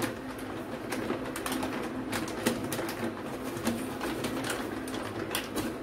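Plastic wheat-flour packet crinkling and rustling in a string of short crackles as a cup is dug into it to scoop out flour.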